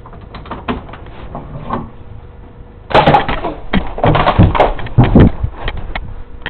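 Scattered light knocks and handling clicks, then about three seconds in a burst of loud clattering knocks and bangs lasting about two and a half seconds, as of things being knocked about or falling.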